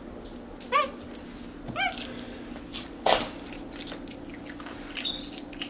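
Capuchin monkey giving two short, squeaky chirps about a second apart, each rising then falling in pitch. A sharp crunch or knock follows about three seconds in, with small clicks of biting and chewing.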